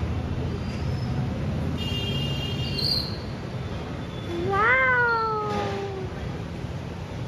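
A cat meowing once, one long call that rises then slowly falls, about four and a half seconds in, over a steady low rumble. A brief high steady tone sounds about two seconds in.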